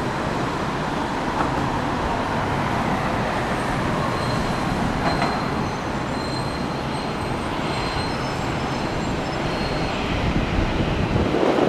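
Jet airliner engines running as the plane comes in on approach: a steady rumble with a faint high whine in the middle, growing a little louder near the end.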